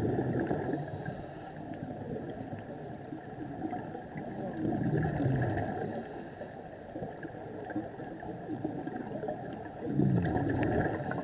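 Scuba diver's exhaled regulator bubbles gurgling, heard underwater, in three surges about five seconds apart over a steady background rush.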